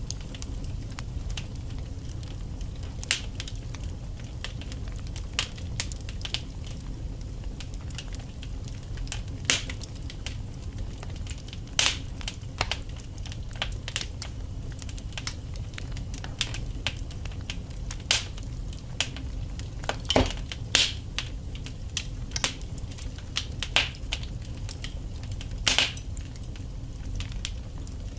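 Wood fire burning in a fireplace: a steady low rumble under irregular crackles and sharp pops from the burning logs, a few of them louder.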